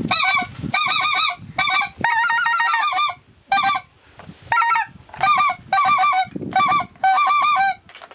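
Hand-blown goose call worked in quick runs of clucks and honks, about a dozen short bursts of rapid notes with brief gaps between them. This is calling to bring a flying goose in.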